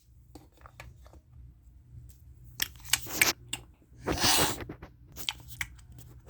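Small clicks and knocks of toys being handled, with two short rasping bursts midway, over a faint steady low hum.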